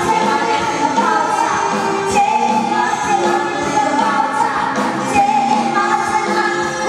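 A woman singing a lively pop song into a microphone over a live band, with a steady drum beat under the vocal line.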